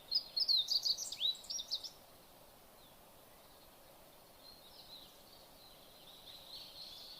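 Songbird chirping outdoors: a quick burst of high chirps and down-slurred whistles in the first two seconds, then only a faint high haze of distant birdsong.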